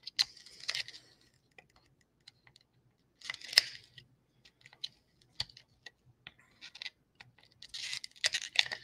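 Small V pliers snipping away the hard plastic edge of a PSA graded-card slab in small bites: scattered sharp clicks and crunches, the loudest about three and a half seconds in, and a quick run of them near the end.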